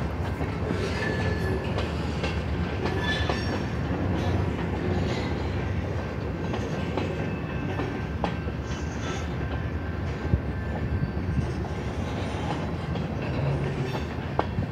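Freight cars of a passing train rolling over a grade crossing: a steady rumble with wheels clicking over rail joints and a few brief, faint wheel squeals.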